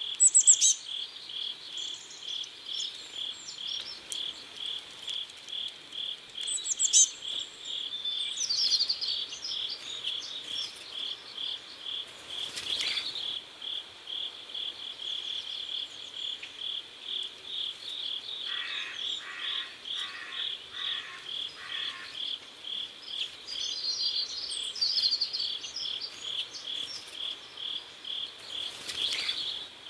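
Crickets chirping steadily, about two to three even chirps a second. Brief higher-pitched chirps from other insects or birds break in now and then, and a short series of lower calls comes about two-thirds of the way through.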